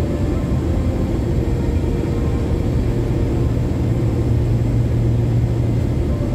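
Airbus A321 cabin noise heard from a window seat: a steady low rumble of engines and airflow as the airliner descends through cloud, swelling slightly about four to five seconds in.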